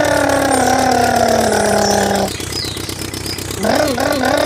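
A person imitating an engine with the mouth: a buzzing "brrr" that slowly falls in pitch, breaks off about two seconds in, and comes back near the end with a wavering rise, as if revving.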